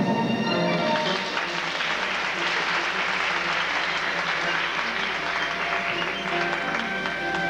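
Audience applauding after the music stops about a second in, a dense even clapping. Music starts again near the end.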